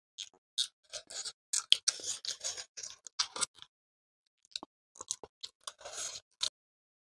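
Paper tissues crinkling and rustling in short, scattered bursts as they are handled and wiped across mouths. The sound cuts off suddenly near the end.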